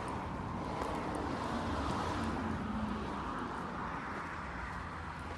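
Outdoor road traffic noise, a vehicle passing that is loudest about two seconds in.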